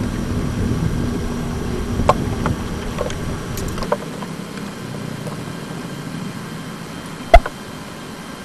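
Low rumbling background noise that drops away about four seconds in, with a few scattered sharp clicks and one louder knock near the end.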